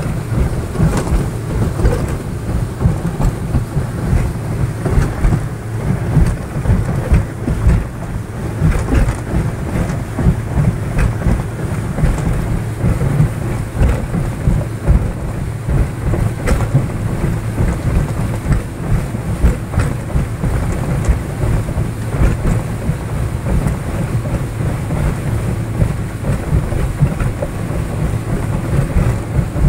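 Motorboat running fast over choppy water: a dense, low rumble of engine and rushing water, with uneven surges as the hull rides over the waves.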